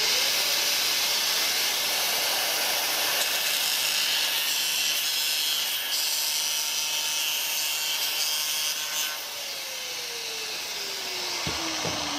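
Angle grinder at full speed cutting through a sheet of glass mosaic tiles: a steady high motor whine with the gritty grinding of the blade on glass. About nine seconds in it is switched off and its pitch falls away as the blade spins down, with a couple of low knocks near the end.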